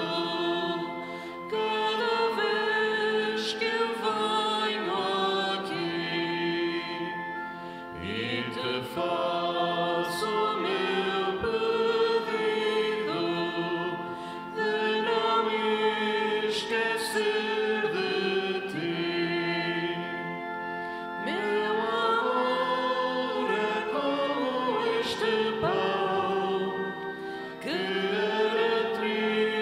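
Choir singing a Portuguese offertory hymn in phrases, with sustained held notes under the voices.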